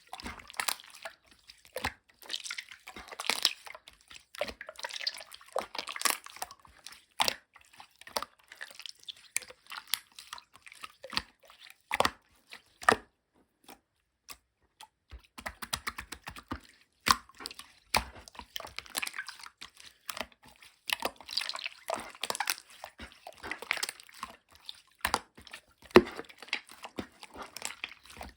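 Clear slime being squeezed, stretched and folded by hand, giving sticky wet clicks and small popping crackles in irregular bursts, with a brief pause about halfway through.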